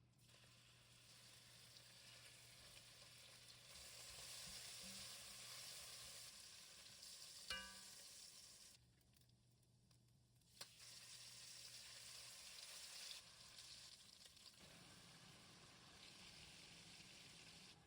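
Marinated chicken thigh pieces sizzling as they fry in a pan, faint and steady, with a short light clink a little before halfway and a brief break just after it.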